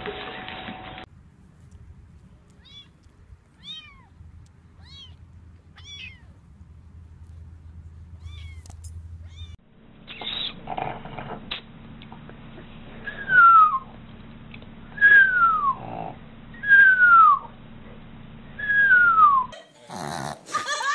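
Pugs whining: four loud, high cries that each fall in pitch, about two seconds apart in the second half, with fainter, shorter high calls before them.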